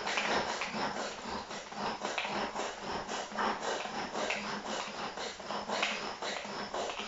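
Kitchen knife scraping and paring a vegetable held in the hand, in rapid, irregular scratchy strokes, several a second.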